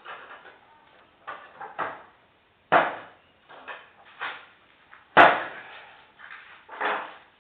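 Wooden parts knocking and clunking as they are handled in the workshop: about eight irregular knocks, the loudest about five seconds in.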